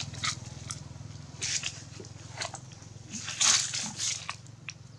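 Scattered short crackles and rustles of dry leaf litter as macaques shift about, the loudest about three and a half seconds in. A passing motorbike's engine fades out in the first second.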